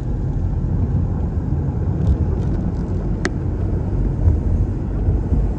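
Steady low rumble of a vehicle driving, with one sharp click about three seconds in.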